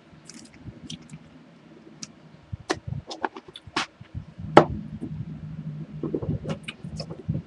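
Chewing a sticky coffee-filled toffee close to the microphone: irregular wet smacks and clicks of the mouth and teeth, with a low hum underneath in the second half.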